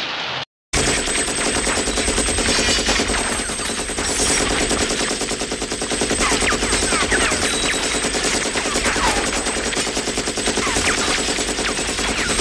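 Rapid automatic machine-gun fire, continuous and dense, starting abruptly just under a second in.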